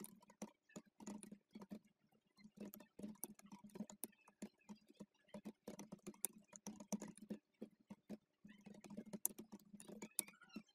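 Computer keyboard being typed on: quick, irregular runs of keystrokes with two brief pauses, faint.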